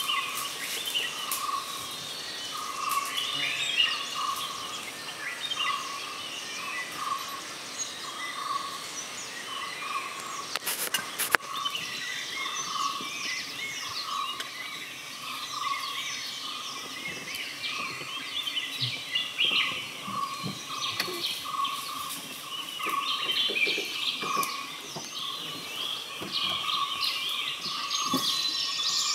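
Forest ambience of many birds calling and chirping, with one lower note repeating about once a second throughout. A single sharp click about eleven seconds in.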